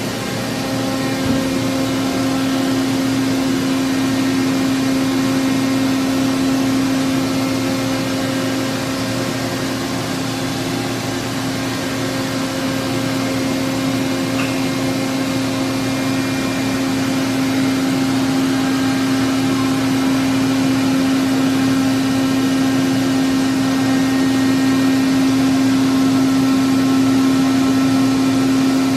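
Steady machine hum with one strong steady tone over a noisy whir, from a powered-up Toshiba BTD-200QF CNC horizontal boring mill standing idle with its spindle stopped.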